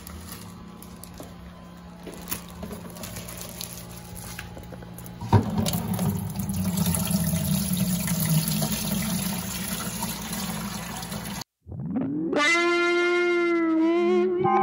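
Aquarium water noise with a steady low hum, a sharp knock about five seconds in, then louder water sloshing as a bag of fish is handled over a plastic bucket. Near the end the sound cuts out for a moment and guitar music starts, with a note that bends in pitch.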